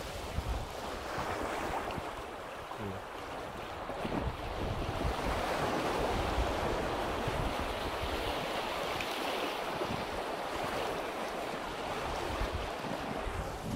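Small lake waves washing onto the shore, swelling louder about four seconds in, with wind buffeting the microphone.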